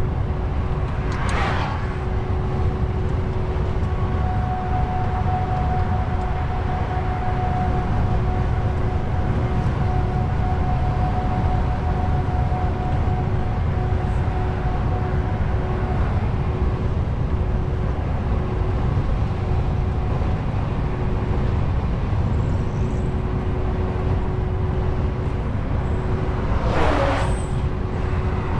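Inside a DAF truck's cab: a steady drone of diesel engine and road noise with a steady hum while cruising. Oncoming vehicles swish past about a second and a half in and twice near the end.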